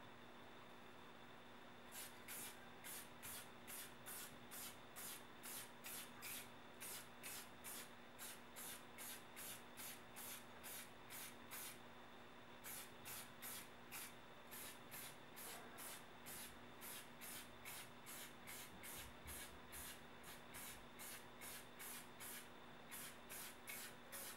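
Faint hiss of an aerosol spray-paint can sprayed in short, quick bursts, about two a second, with a brief pause about halfway through.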